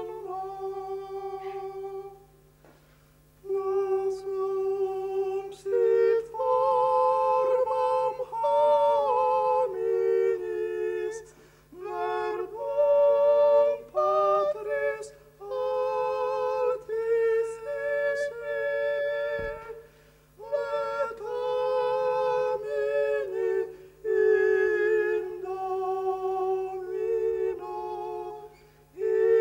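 Two men singing an old Polish Christmas carol in two-part harmony, unaccompanied, phrase by phrase with short pauses between. A faint steady low hum runs underneath.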